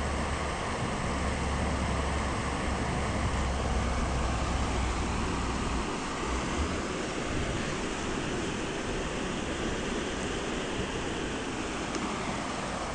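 Steady rushing of a small waterfall on a rocky brook, with a low rumble underneath that stops about six seconds in.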